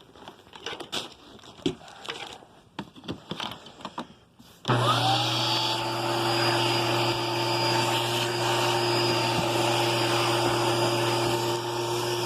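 A few clicks and knocks, then about five seconds in a Hoover Spirit vacuum cleaner switches on; its motor whine rises quickly to speed and then runs steadily.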